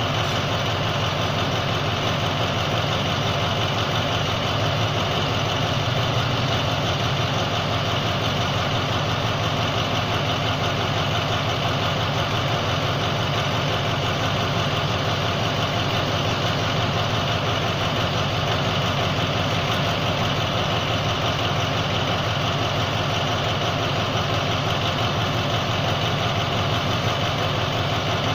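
State Railway of Thailand diesel-electric locomotive 4142 idling while standing stationary, its engine running steadily with a constant high whine over it.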